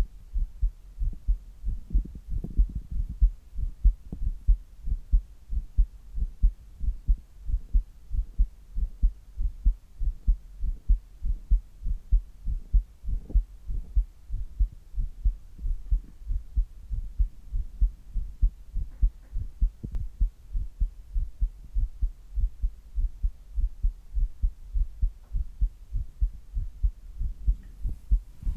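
A man's resting heartbeat: low beats repeating in a steady, even rhythm.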